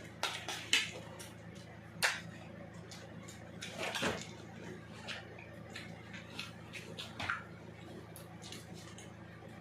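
Eating sounds from a meal of lato (sea grapes): sharp clicks and clinks of a utensil against a dish, five louder ones scattered through, with quieter ticks between.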